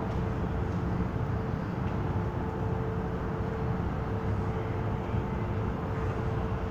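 MTR M-Train electric multiple unit standing at the platform: a steady rumble of its onboard equipment and the station air, with a constant mid-pitched hum.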